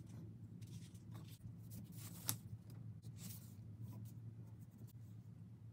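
Graphite pencil sketching on a sheet of paper: faint, irregular scratching strokes, with one sharper stroke a little past two seconds in, over a low steady hum.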